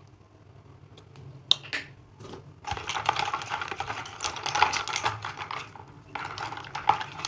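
Makeup brushes being swished and rubbed by hand in a plastic tub of soapy water, a dense clattering and splashing of brush handles and water. It starts with a few light knocks and becomes continuous a little under three seconds in, with a brief pause near the end.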